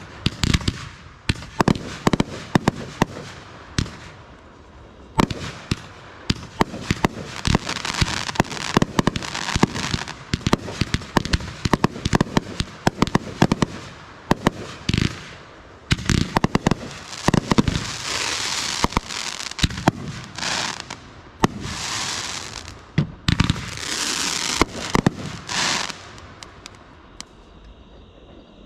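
Consumer firework cakes firing in a show: a dense, fast string of sharp bangs and bursts with hissing and crackling between them. The shots thin out shortly before the end.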